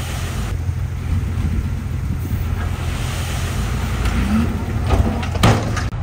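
Diesel engine of a dump truck running with a steady low rumble as its raised bed empties soil, with a few sharp metallic knocks near the end.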